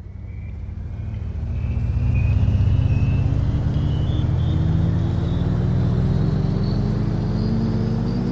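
A motor vehicle's engine running and climbing steadily in pitch as it speeds up, fading in from silence at the start.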